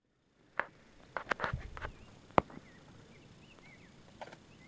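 A handful of sharp clicks and knocks from close handling, the loudest a single crack about two and a half seconds in, with small birds chirping in the background.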